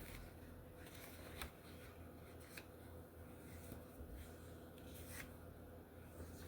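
Faint paper rustles and soft clicks of coloring book pages being turned and handled, a few separate strokes over a low steady room hum.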